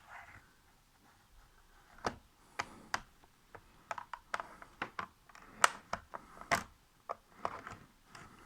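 Plastic pry tool working a cover on a Lenovo ThinkPad T440p's plastic case: a string of irregular sharp clicks and taps, starting about two seconds in.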